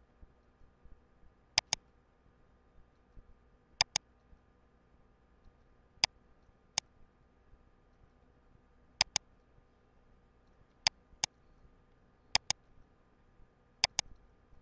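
Computer mouse button clicking: seven sharp double clicks, a press and release each, spaced about one and a half to three seconds apart, over a faint steady hum.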